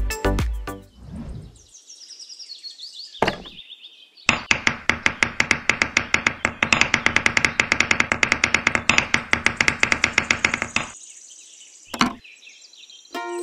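A rapid run of light, sharp knocks, several a second for about six seconds, as a small wooden post is worked into sand. A single knock comes before the run and another after it.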